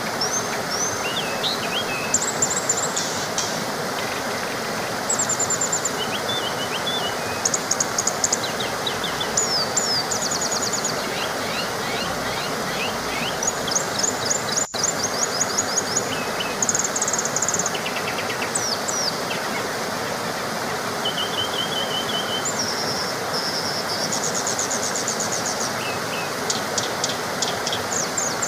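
Small waterfall rushing steadily, with many birds chirping and trilling over it in short high-pitched phrases; the sound cuts out for an instant about halfway through.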